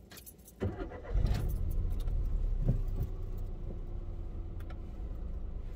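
Car engine started with the key: keys jangle, the engine catches about a second in and runs at a steady idle, easing a little quieter after a couple of seconds.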